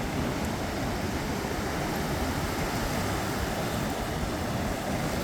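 Steady wind rumbling on the microphone, mixed with ocean surf washing ashore.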